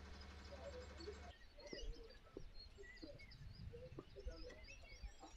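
Faint outdoor ambience with small birds chirping, many short high chirps. A steady low hum runs under it and cuts off about a second in.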